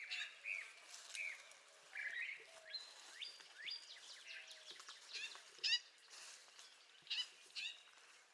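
Mixed songbird chorus: short chirps and slurred whistled notes from several birds, coming every fraction of a second, with a few faint lower calls underneath about three seconds in.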